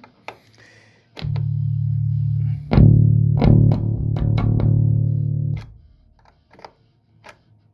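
Bass guitar played through a Behringer BX4500H bass amp head. A low note comes in about a second in, then a louder note is struck and held for about three seconds before it dies away. Sharp clicks and crackles run through it and after it, which fits the intermittent input-connector fault that the owner is chasing.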